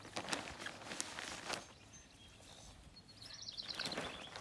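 Thin plastic sheeting rustling and crinkling as it is gripped and pulled over grass, loudest in the first second and a half and again near the end. A bird chirps in a quick trill a little past halfway.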